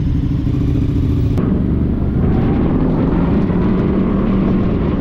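Several motorcycle engines running at low speed as the bikes pull away, a steady low rumble. About a second and a half in the sound changes abruptly to motorcycles riding along a street.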